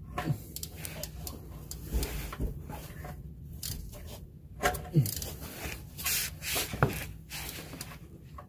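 Handling noise from a ratchet with a cartridge oil-filter wrench being fitted onto the oil filter housing: scattered clicks, light knocks and rubbing of gloves and sleeve, with a few sharper knocks about two seconds in and around five and seven seconds.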